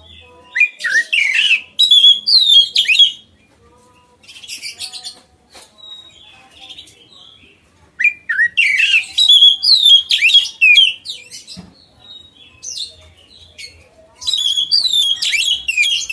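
Oriental magpie-robin singing loudly in bursts of quick whistled notes that slide up and down, mixed with harsher rasping notes: a long phrase about a second in, a softer one around four seconds, another around eight seconds and a last near the end.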